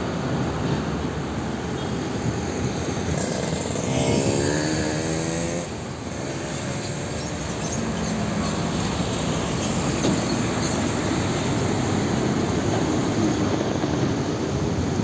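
Heavy diesel trucks passing close by one after another, a fuel tanker semi-trailer and then container trucks, with engines running under steady tyre and road noise. About four seconds in, an engine revs with a rising pitch.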